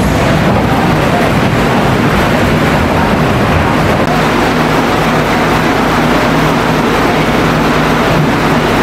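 Tennessee Tornado steel roller coaster train rolling into the station on its track with a steady rumble. A low hum joins about four seconds in.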